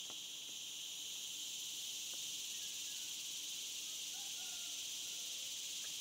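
Steady, high-pitched chorus of insects such as crickets, droning without a break.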